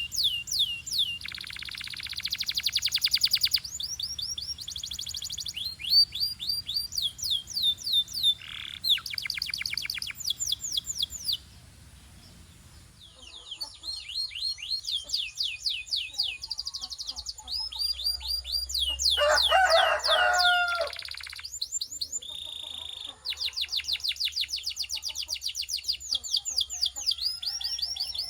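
Canary singing: fast runs of repeated sweeping whistled notes and rolling trills, with a short pause a little before the middle.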